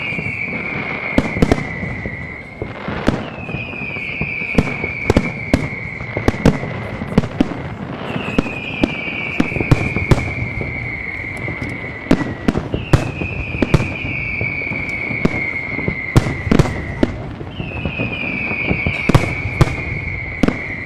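Fireworks display with aerial shells bursting in many sharp bangs and booms, over a steady crackling rumble. A high whistle falling slowly in pitch comes back about every four to five seconds.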